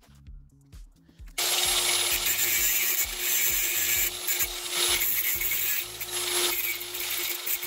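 An angle grinder starts about a second and a half in and grinds metal on a bike's disc-brake caliper mount: a harsh grinding hiss over a steady whine. Background music with a steady beat runs underneath.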